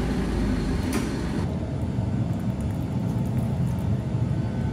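Hyster forklift's engine idling steadily, with a single sharp click about a second in.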